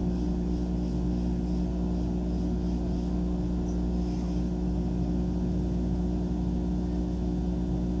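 Laser cutter running with a steady mechanical hum while its head engraves a wooden board.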